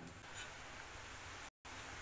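Quiet room noise with one faint light tick about half a second in, and a brief cut to dead silence around a second and a half in.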